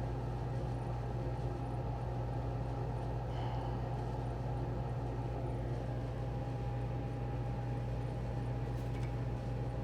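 A steady low mechanical hum with a faint steady higher tone over it, unchanging throughout.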